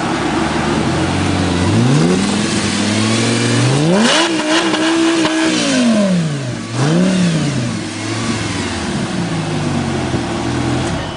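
Lamborghini engine revving on a dyno: it runs steadily, climbs in pitch for about two seconds, holds at high revs, then falls back. A quick second blip follows before it settles to a steady lower speed.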